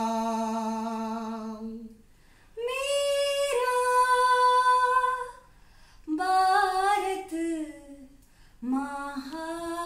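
Unaccompanied voices singing, a woman's voice prominent: long held notes in four phrases with short breaths between them, the third phrase stepping down in pitch.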